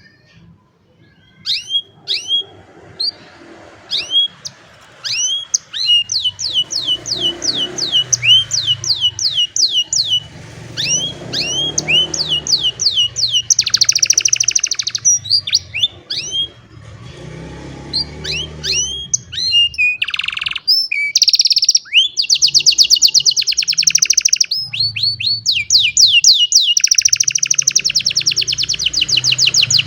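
Domestic canary singing. It starts with a few separate chirps, then goes into rapid runs of repeated downward-sliding notes broken by fast rolling trills.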